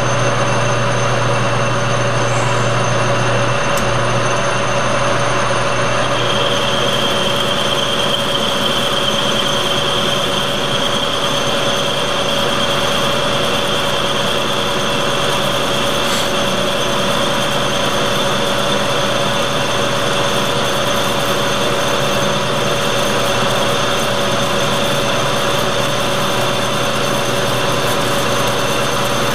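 Metal lathe running, turning down the outside diameter of a small round workpiece, with a steady motor hum and cutting hiss. About six seconds in, a thin high whine joins and holds steady.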